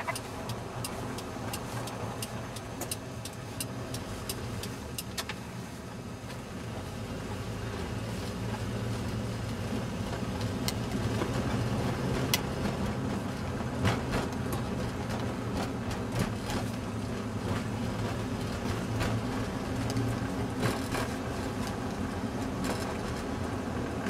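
Engine and tyre drone inside a moving car's cabin on a snowy road, growing louder a few seconds in as the car picks up speed, with scattered small clicks and knocks.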